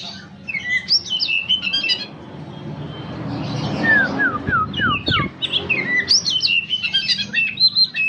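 Oriental magpie-robin (kacer) singing a varied run of clear whistles and slurred notes, with a string of short falling whistles about halfway through.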